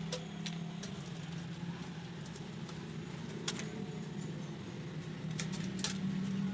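A steady low hum with a few light, sharp clicks and taps scattered through it.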